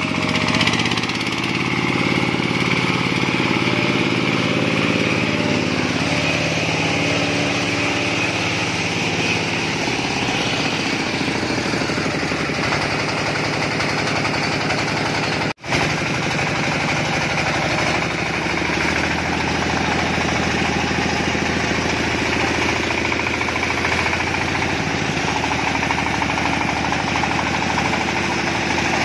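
Single-cylinder diesel engine of a công nông farm cart running steadily as the cart works through mud, with a momentary break about halfway through.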